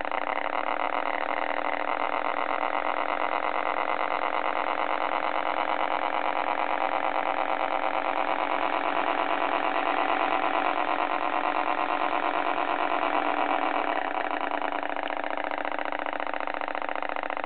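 Simulated truck engine idling from a radio-controlled model's electronic sound unit, played through a small speaker with no deep bass. It runs steadily, a little louder for a stretch in the middle before settling back about 14 seconds in.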